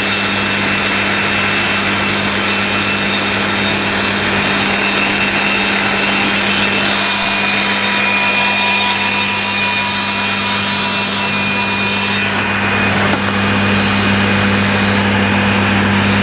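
Cabinet table saw running with a steady motor hum while its blade rips through a length of timber. About twelve seconds in, the cutting noise drops away and the saw runs on freely.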